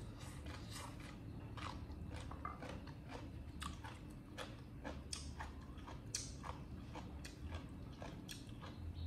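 A baby monkey chewing crunchy food, with many short, sharp, irregular crunches, roughly three or four a second, over a low steady hum.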